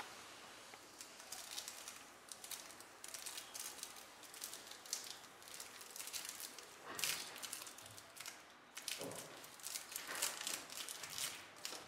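A thin clear plastic bag crinkling and crackling as it is torn open and pulled off a mobile phone battery, in irregular crackles, louder about seven seconds in and again from about nine to eleven seconds in.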